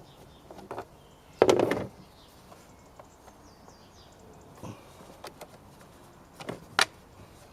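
Clicks and knocks of hands and a screwdriver working the plastic air filter box of a car engine loose, with one louder clattering rattle about one and a half seconds in and a few sharp clicks near the end.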